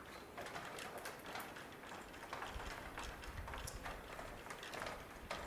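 Footsteps through dry forest litter, with irregular snapping of twigs and rustling of leaves and brush.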